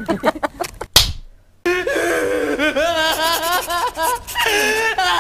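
Short crackling clicks, then one sharp slap about a second in; after a brief gap, a long, wavering, exaggerated cartoon voice that sounds like laughter.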